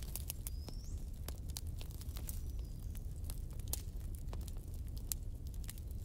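Wood fire burning: a steady low rumble of flames with sharp crackles and pops from the burning wood, several a second. A brief high whistle rises near the start.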